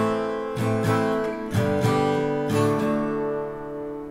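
Background music: a guitar strumming chords, about one strum every half second, softening near the end.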